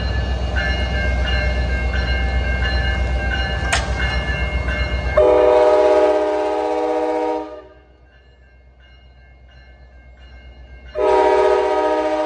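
NJ Transit PL42AC diesel locomotive pulling in, its engine and wheels making a loud low rumble with a repeating high ringing over it. About five seconds in, its horn sounds a long chord blast of about two seconds, and a second blast starts near the end.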